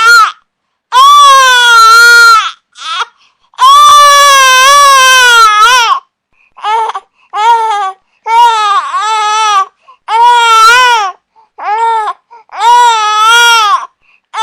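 Infant crying in repeated loud wails, each lasting from a fraction of a second to about two seconds, with short silent breaths between them.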